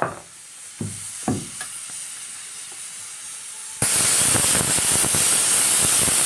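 Pressure cooker of dal letting off its whistle: a sudden loud hiss of venting steam about four seconds in, breaking off abruptly. A softer steady hiss runs before it.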